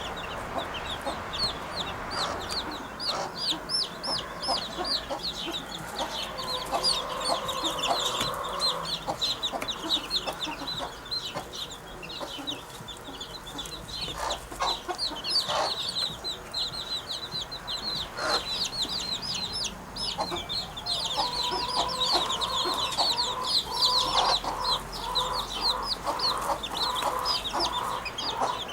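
Birds calling: many rapid short high chirps run on without a break, and lower held calls come in twice, once about a quarter of the way through and again in the last third.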